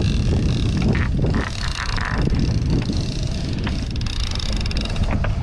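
Steady low rumble of wind and water around an open boat at sea, with a few short clicks and rattles.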